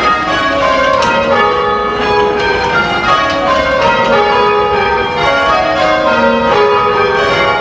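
Church tower bells rung full circle by a band of ringers pulling ropes, rung in rounds: each bell strikes in turn from highest to lowest in a repeating falling scale, the notes ringing on and overlapping.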